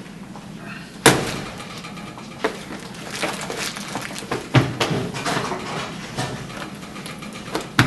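A sharp bang about a second in, followed by irregular knocks and clattering.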